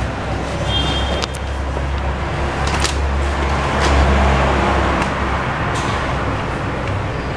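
Modernised Otis 2000 lift car in motion: a steady low rumble with a few sharp clicks, and a short high beep about a second in.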